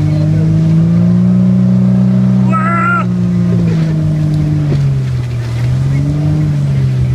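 Motorboat engine running under way, its pitch rising about a second in, holding, then easing off and settling lower from about four seconds on, over water and wind noise. A brief high voice cries out about two and a half seconds in.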